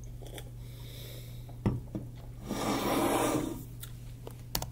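A person drinking from an aluminium energy-drink can: a knock about two seconds in, then a long breath out lasting about a second, and a few sharp clicks near the end, over a steady low electrical hum.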